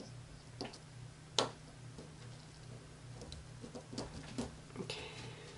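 Scattered small clicks and taps of hands handling soap dough pieces and tools on a marble countertop, the sharpest tap about a second and a half in and a brief rustle near the end, over a steady low electrical hum.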